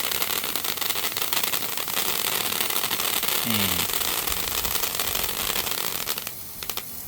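Small firework burning with a dense, fast crackle that dies away about six seconds in.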